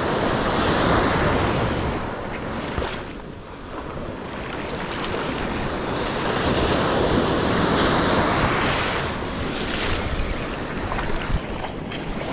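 Gulf surf breaking and washing up the sand at the waterline, the rush swelling and easing with each wave, with wind on the microphone.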